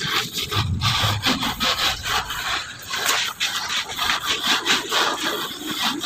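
Hands sweeping and raking shelled corn kernels across a plastic tarp, spreading them thin to dry: a repeated rough rustling scrape of grain sliding over grain and tarp, in uneven strokes.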